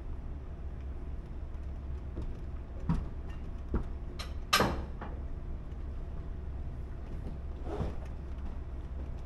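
Steady low rumble of a vessel underway, with a handful of sharp clicks and knocks, the loudest about four and a half seconds in.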